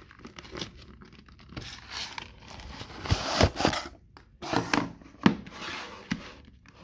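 Cardboard packaging handled: the outer sleeve slid off a pen presentation box, card scraping and rustling in uneven bursts, with a sharp knock about five seconds in as the box is set down on the table.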